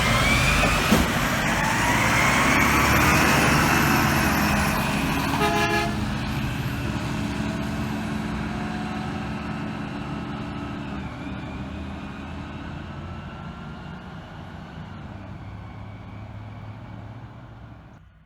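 Waste Connections refuse truck's brakes squealing in high gliding whines over its low diesel rumble, with a brief toot-like tone about five and a half seconds in. The truck's sound then fades away steadily.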